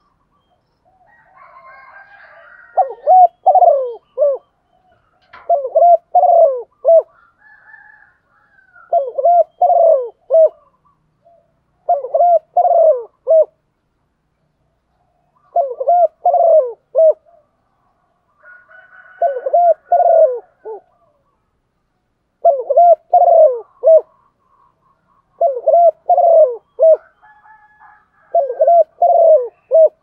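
Female spotted dove cooing in short multi-note phrases, about one every three seconds. This call is used to set male spotted doves cooing in reply.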